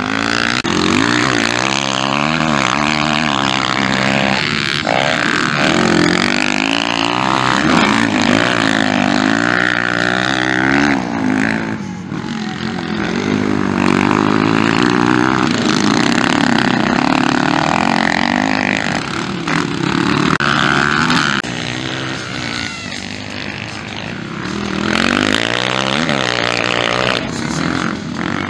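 Motocross dirt bike engines revving hard through the corners, their pitch rising and falling over and over as the throttle opens and shuts, with a few brief lulls between bikes.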